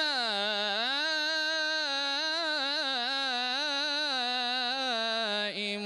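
A man's solo voice singing Islamic madih, praise of the Prophet Muhammad, without accompaniment. He holds one long, ornamented note whose pitch dips at first and then wavers in quick turns, breaking off just before the end.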